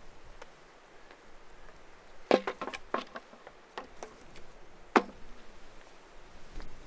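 A few sharp knocks and cracks: a quick cluster about two to three seconds in, a few faint ones after, and one single sharp crack about five seconds in.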